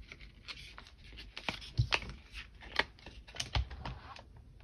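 Irregular clicks and taps of long acrylic nails on a clear plastic cash envelope and polymer banknotes as bills are handled and slid in, with a few sharper clicks about halfway through.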